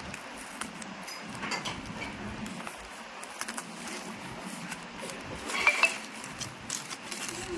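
Hands handling a boxed phone and its packaging: light clicks and taps, with two sharper clicks about three quarters of the way through.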